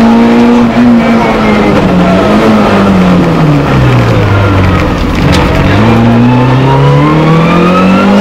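Rally car engine heard from inside the cabin: the revs drop away over a couple of seconds as the car slows for a tight corner, then climb steadily as it accelerates out of it.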